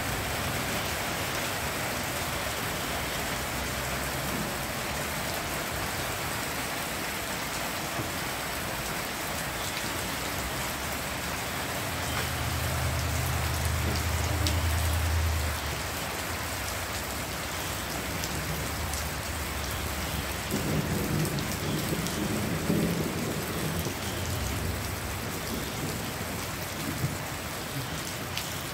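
Heavy rain pouring steadily, a dense even hiss, with a deep low rumble of thunder for about three seconds near the middle.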